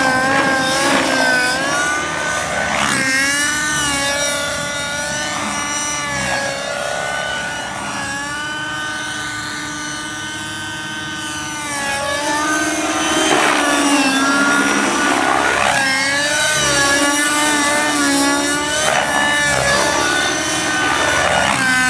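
T-Rex 600 Nitro radio-controlled helicopter flying: the nitro glow engine and spinning rotors whine continuously, the pitch swooping up and down as it is thrown through manoeuvres. The sound fades somewhat around the middle, then comes back louder.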